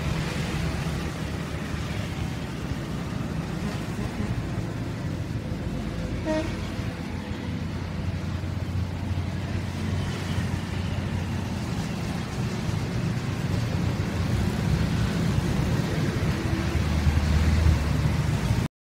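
A motor engine running steadily, a low rumble under general outdoor noise, which cuts off suddenly near the end.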